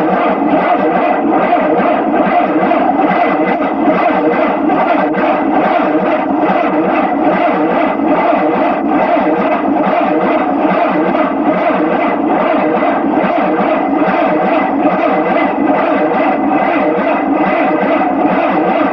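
Experimental Papp engine running steadily under test, a loud buzzing hum with a rapid, even pulsing that sets in suddenly and holds without change.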